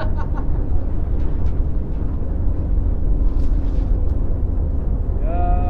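Wind buffeting the microphone in a steady low rumble. Near the end comes one short rising-and-falling call.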